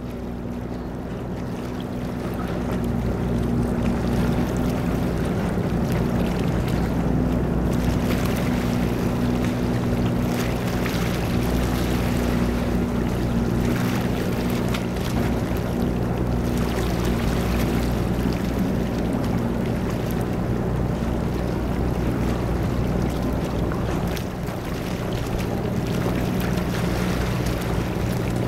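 Steady low engine drone made of several constant humming tones, under a hiss of wind and water noise, with a few faint knocks.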